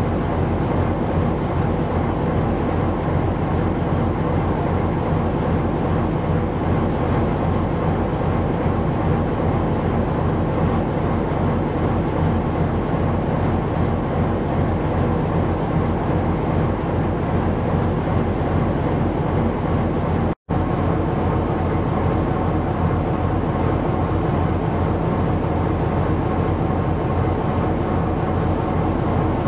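Steady drone of a ship's engine and machinery, a low hum of several steady tones over a rushing noise, broken by a split-second dropout about two-thirds of the way through.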